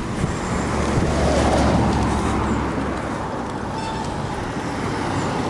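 Steady rushing wind on the microphone, mixed with road noise, while riding a recumbent trike across a road; the rush swells a little about a second in and eases after.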